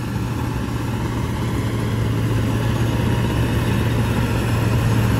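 Combine harvester running steadily in a rice field, its engine giving a constant low drone.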